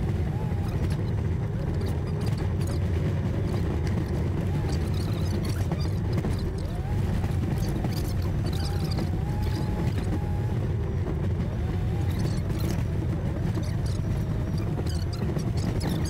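4x4 tow truck driving slowly over a rough, rocky dirt road: a steady low rumble of engine and running gear heard inside the cab, with light rattles and knocks from the bumpy ride. A faint wavering whine comes and goes over it.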